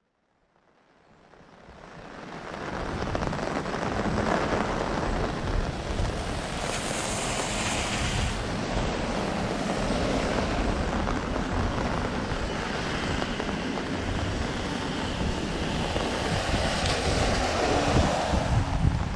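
Heavy rain and strong wind, with wind rumbling on the microphone, a steady loud rushing noise that fades in over the first few seconds.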